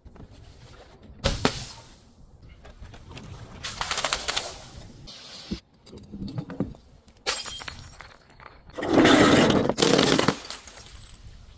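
Glass being broken and crushed: a sharp crack a little over a second in, then several bursts of crunching and grinding, the loudest and longest about nine to ten seconds in.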